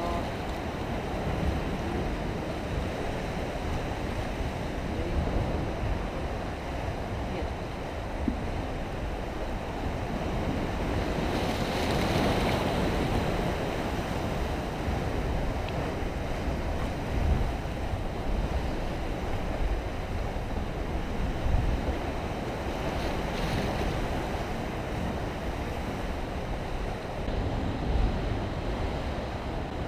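Sea surf washing on a rocky shore, a steady rushing that swells briefly about a third of the way through, with wind gusting on the microphone.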